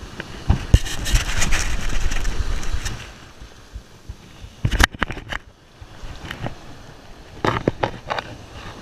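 Surf washing up over the sand, with wind rumbling on the microphone, loudest for the first few seconds. A few sharp knocks and scrapes follow about five seconds in and again near the end.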